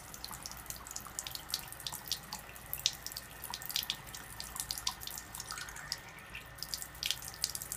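Water running from the two spouts of a KYK 66000 alkaline water ionizer's faucet into a sink basin, a steady splashing stream with many small spatters. About two-thirds of the way through, a small plastic cup is held under the stream and fills with a briefly rising tone.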